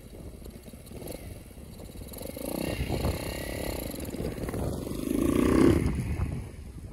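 Small chopper motorcycle's engine revving as the bike pulls away and rides off. It is loudest about five seconds in, then fades quickly.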